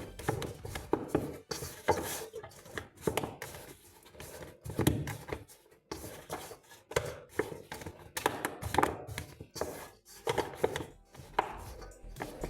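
Irregular knocks and thuds of food being worked on a kitchen counter or board, several a second, uneven in strength.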